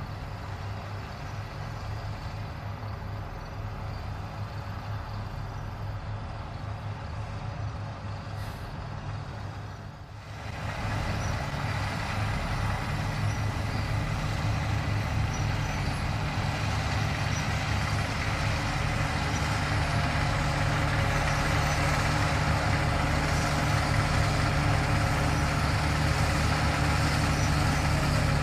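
Fendt 9T combine harvester running steadily, its engine hum under the rushing noise of the threshing machinery. About ten seconds in the sound turns louder and fuller.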